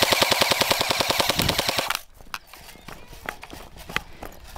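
Airsoft gun firing a full-auto burst of about fifteen shots a second, stopping about two seconds in, followed by a few scattered sharp clicks.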